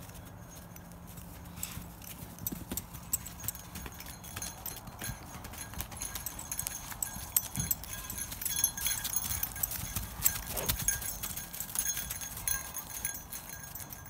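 Hooves of several young Jersey calves walking and trotting over snow-patched ground: an irregular run of footfalls that comes more thickly in the second half.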